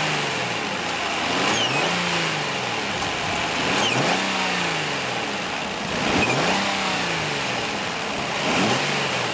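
Nissan Murano Z50's V6 engine revved up and back down about every two seconds. Each rev brings a short, high, unpleasant whistle from the throttle body: air being sucked past a worn plastic bushing, an unmetered-air vacuum leak.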